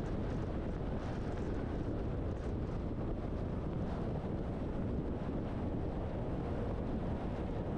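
Steady low rumble of a truck driving on the road: engine and tyre noise with some wind, unchanging throughout.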